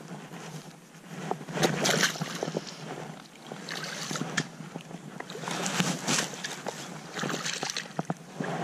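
Water splashing and sloshing in irregular bursts, with scattered sharp clicks and knocks, as a freshly caught pike is handled at the water's edge before it swims off.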